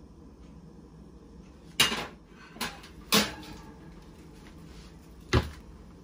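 Kitchenware being handled: a sharp clatter about two seconds in, a smaller knock, another clatter with a short ring, then a knock with a deeper thud near the end.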